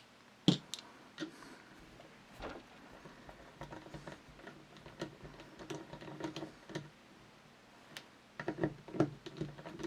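Screwdriver working the tang screw out of a Mle.1892 Berthier rifle: one sharp metal click about half a second in, then faint, irregular clicking and creaking as the screw turns, busier near the end.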